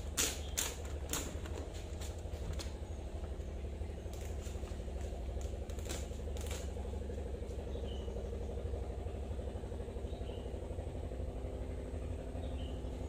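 Fingertips tapping and pressing along a fibreglass panel's resin-laminated corner joint, giving a few sharp clicks in the first seven seconds, over a steady low hum.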